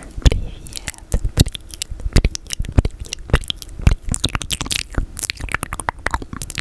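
Close-miked ASMR mouth sounds from eating peanut butter: quick, irregular sticky clicks and smacks of tongue and lips, several a second.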